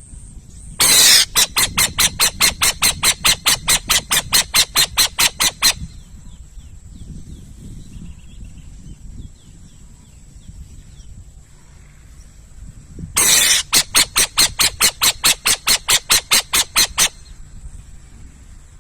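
Owl calling twice, each call a loud harsh screech that breaks into a rapid stutter of about five pulses a second, the first lasting about five seconds and the second about four.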